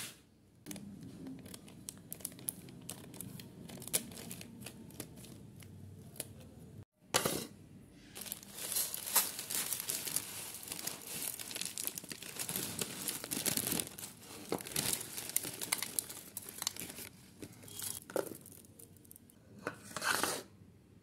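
Plastic noodle packet crinkling and rustling as it is handled and torn open. The sound drops out briefly about seven seconds in, then comes back louder and denser.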